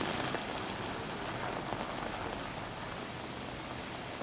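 Steady hiss of rain and car tyres on a wet road, slowly fading as a BMW Alpina B12 saloon drives away. No clear engine note is heard.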